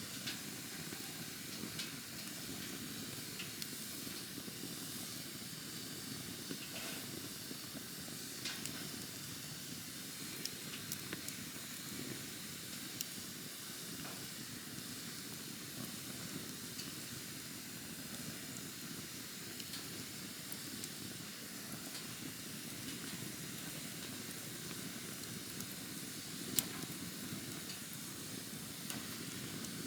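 Wood campfire burning: a steady rush of flame with scattered crackles and small pops, and one sharper pop near the end.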